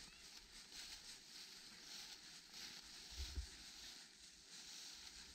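Faint footsteps rustling through dry fallen leaves, a soft swish repeating about twice a second, with a brief low thump about three seconds in.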